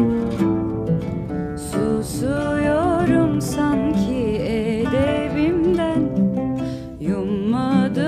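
Instrumental stretch of a Turkish pop song: acoustic guitar accompaniment, joined about two seconds in by a sliding, wavering melody line.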